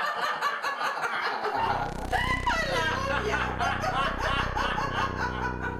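A man and a woman laughing, with a high squealing laugh about two seconds in. A low steady drone comes in underneath about a second and a half in.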